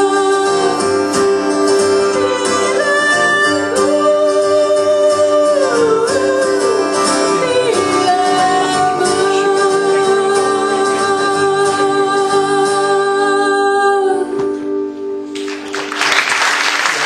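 Live folk song with singing and acoustic guitar reaching its end: long held sung notes, the final chord stopping about fourteen seconds in and dying away, then the audience starts applauding near the end.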